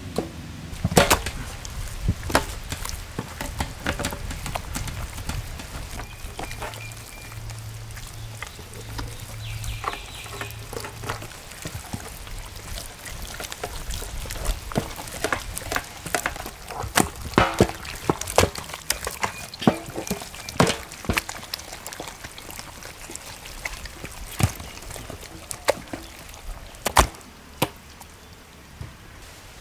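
Raw goat legs being handled and rubbed with turmeric paste by hand: irregular wet slaps and thuds of hands and meat. A low steady hum runs under the first ten seconds or so.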